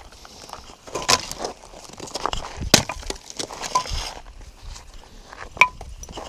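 Irregular clinks and knocks of hard objects being handled, three of them with a short ringing tone, at about one, three and a half and five and a half seconds in.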